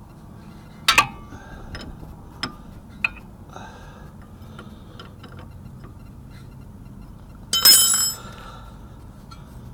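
Metal tools and parts clinking during tie rod end work: a few sharp clicks, then a louder ringing metallic clank about eight seconds in.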